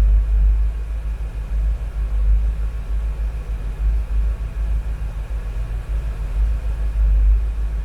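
1972 Chevy Nova's engine idling with the air conditioning running: a deep, uneven low rumble.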